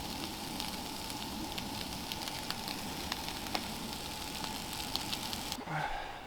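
Food sizzling in a hot pan, a steady hiss with frequent crackling pops, cutting off abruptly near the end.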